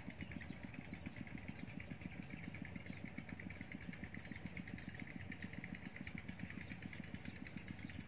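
A small engine running steadily, with an even beat of about ten pulses a second.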